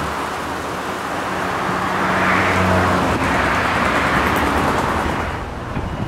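A motor vehicle passing by: its engine hum and tyre noise swell to a peak about halfway through and fade near the end.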